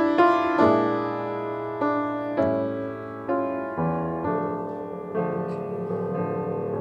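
Piano playing a slow hymn tune, chords struck and left to ring and die away between strokes.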